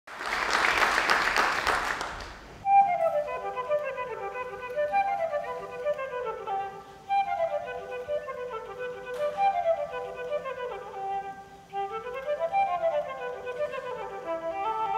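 A short burst of hissing noise, then a flute playing fast runs of notes that fall and rise again and again.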